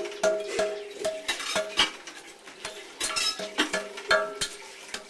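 A hand hammer knocks baked clay mould off a freshly cast metal statue. Each blow is a sharp clink with a brief metallic ring, coming unevenly at two to three a second, with a short lull about halfway.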